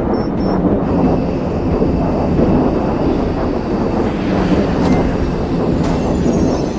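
Jet aircraft noise: a loud, steady rushing roar of jet engines.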